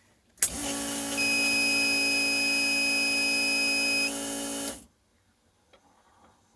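Loud, steady electric buzz that starts abruptly and cuts off after about four seconds, with a high steady beep sounding over its middle three seconds.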